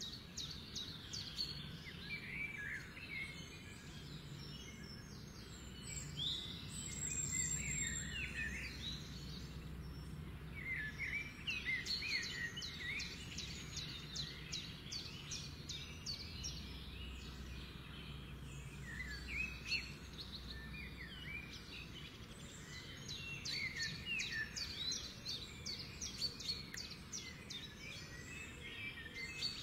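Several birds chirping and singing, with quick trills and short rising and falling whistles throughout, over a faint low steady hum.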